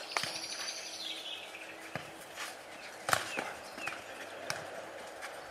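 Futnet ball being kicked and bouncing on the hard court during a rally: a few sharp separate thuds, the loudest about three seconds in.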